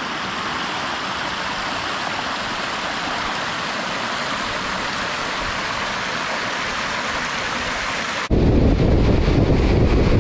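Steady rush of water from a hot spring's small waterfall pouring into a rock pool. About eight seconds in it cuts abruptly to a louder, low rumble of wind buffeting a microphone on the outside of a car at highway speed.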